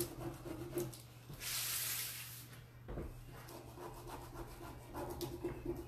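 Rustling and rubbing of a plastic-backed decor transfer sheet being pressed and handled by hand, with one longer, louder rustle about a second and a half in.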